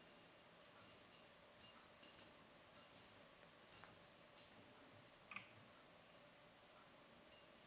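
Faint, irregular jingling rattles from a ribbon wand cat toy as it is shaken and dragged about in front of a playing kitten.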